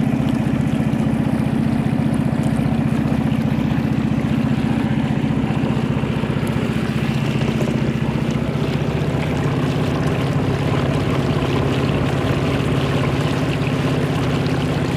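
Motor of a narrow wooden river boat running steadily under way, a constant low hum with water noise.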